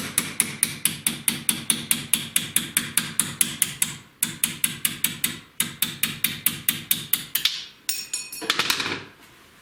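Quick, even hammer taps on a small chisel, about five a second, working a worn small-end bushing out of a motorcycle connecting rod, broken by a few short pauses. The tapping stops about nine seconds in.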